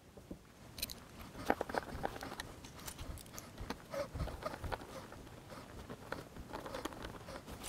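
Faint, irregular small clicks and rustles of hand work: an Allen key and small chrome screws being handled and turned into a padded backrest.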